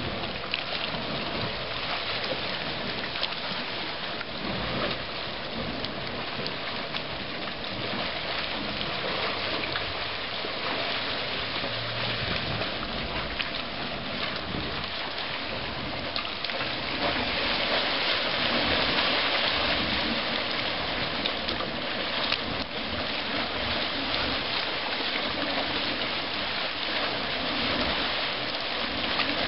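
Dragon's Mouth Spring, a Yellowstone hot spring: hot water churning and splashing out of its cave mouth as steam vents, a steady rushing noise that swells somewhat about seventeen seconds in.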